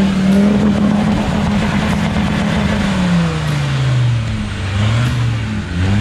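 Land Rover Defender 90's engine revving hard as it ploughs through deep mud ruts, held high and then easing off about three seconds in, with a couple of short throttle blips near the end. Mud and water are splashing against the wheels and body.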